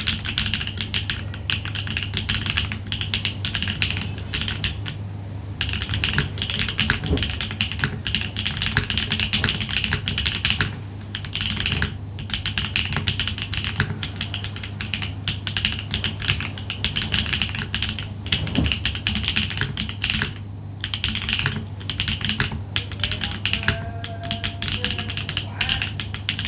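Typing on a Neo80 mechanical keyboard with HMX Ice Lotus tactile switches, a POM plate and no foam: fast, continuous keystroke clacking with a few brief pauses, over a steady low hum.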